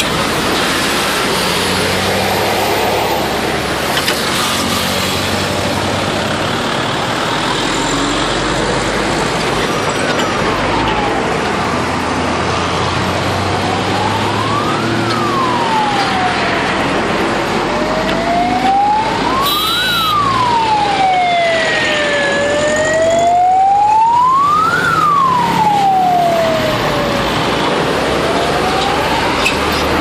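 Steady traffic noise of buses and other vehicles passing close by. From about a third of the way in, a siren-like bus horn wails, rising and falling about every five seconds, with a short high horn blast in the middle.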